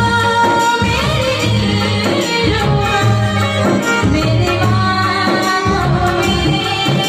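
A woman singing a Hindi film song live into a microphone, accompanied by a sustained synthesizer, tabla and electronic drum pad keeping a steady beat.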